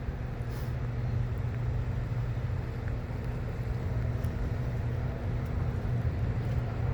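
Steady low rumble of road traffic and vehicle engines, with a faint steady hum.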